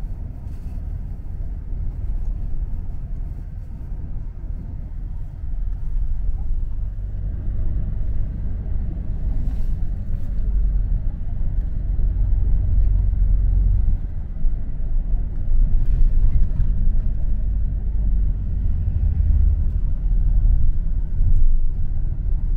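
Bus engine and road noise heard inside the passenger cabin: a steady low rumble that grows louder about seven seconds in as the bus picks up speed.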